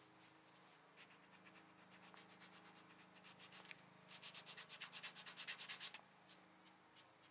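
Hand-held sanding disc rubbed over the edge of a glued-in walnut patch on a table corner, shaping it to match the corner. Quick back-and-forth strokes, faint at first, then louder for about two seconds before stopping shortly before the end.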